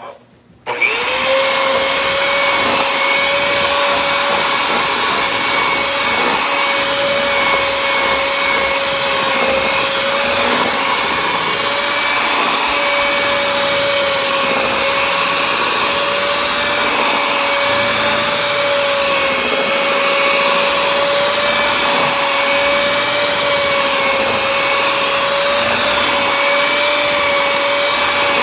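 Electric hand mixer switched on just under a second in, then running steadily with its beaters whipping cream cheese frosting in a bowl. It gives a steady motor whine over a whirring hiss.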